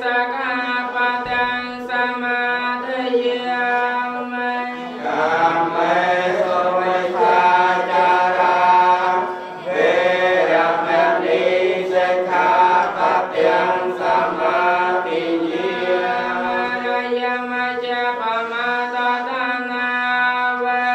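Buddhist monks chanting a blessing together on a steady held monotone. From about five seconds in, the chant grows louder and fuller and moves up and down in pitch, then settles back to the monotone near the end.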